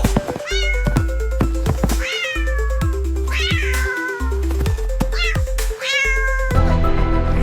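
A kitten meowing about five times, each a high call that falls in pitch, over background music with a steady beat.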